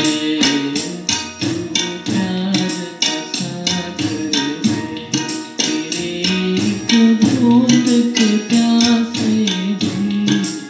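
Backing music for a devotional song: a quick, steady percussion beat under a held melody line, with little or no singing heard over it.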